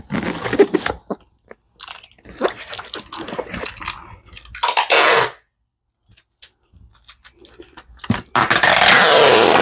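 Packing tape pulled off a handheld tape dispenser and pressed onto a cardboard box: a few short pulls, then a long, loud pull near the end.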